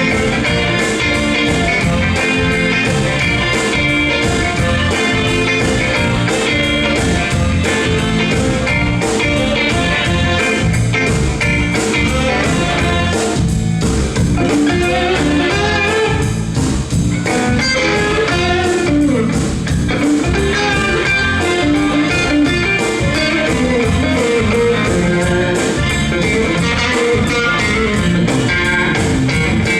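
Live blues band playing an instrumental passage, electric guitar to the fore over a steady drum beat.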